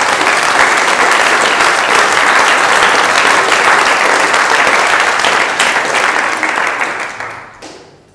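Audience applauding, a dense clapping that holds steady and then dies away about seven to eight seconds in.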